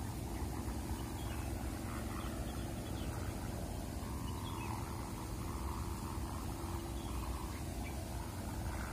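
Strong wind rumbling on the microphone, with a faint steady hum over it from the bamboo sawangan hummer on a flying Javanese kite.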